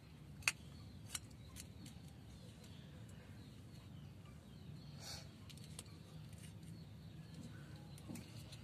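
A 20-day-old kitten chewing and smacking on fish from a plastic bowl: faint, irregular small clicks over a steady low hum.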